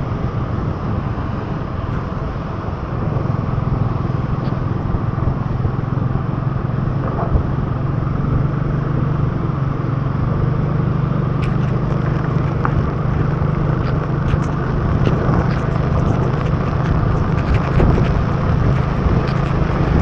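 Motorbike engine running steadily at cruising speed with a constant low hum, under wind rush and the hiss of tyres on a wet road. From about halfway in, rain patters in sharp ticks on the camera.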